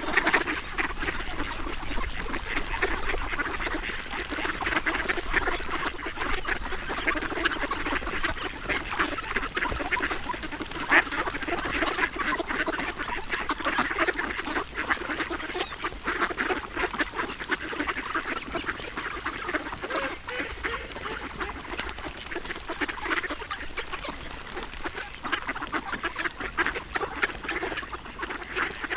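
Ducks feeding: a steady, dense run of quacks and rapid short chattering calls that never stops.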